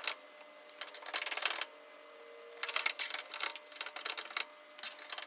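Hand file rasping on the edge of a freshly drilled hole in a stainless steel table top, taking off the drilling burrs. A stretch of strokes comes about a second in, then a run of short, quick strokes from about two and a half seconds in.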